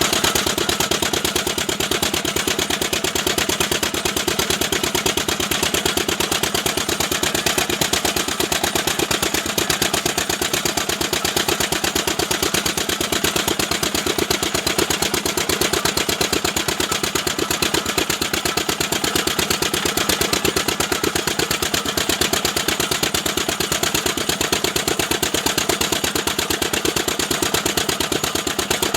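Engine of a pressed-brick making machine running steadily, with a rapid, even knocking beat.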